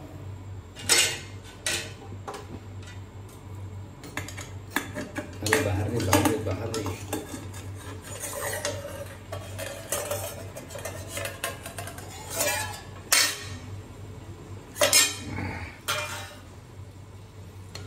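Long metal spatula clanking and scraping against a black iron kadai and an upturned steel bowl while a curry is stirred. Sharp metal clinks come at irregular intervals over a low steady hum.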